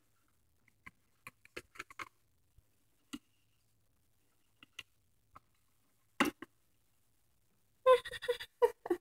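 Faint scattered taps and clicks of small plastic Littlest Pet Shop figures being handled and set down on a shelf, with a louder knock about six seconds in and a short cluster of louder sounds near the end.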